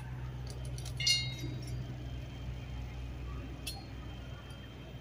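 Light metallic clinks of metal shelf brackets being handled and held against a wall: one clear clink with a short ring about a second in, and a smaller tick later on. A steady low hum runs underneath.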